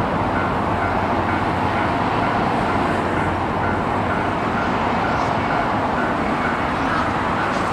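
Level-crossing warning bell ringing in an even rhythm, about two and a half strikes a second, over the steady rolling noise of a tank-car freight train passing the crossing.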